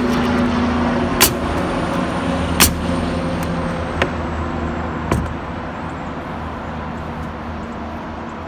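Loud truck engine running steadily and slowly fading away, with a pneumatic nail gun firing four sharp shots into OSB roof sheathing over the first five seconds or so.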